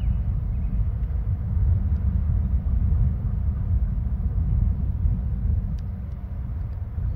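Steady low outdoor rumble that swells and fades unevenly, with a faint short chirp right at the start.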